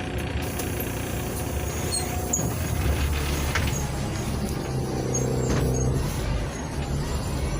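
NefAZ 5299 city bus's Cummins ISBe diesel engine running, heard inside the bus, its low rumble strengthening about three seconds in with a clear engine note a little later, over faint rattles and clicks.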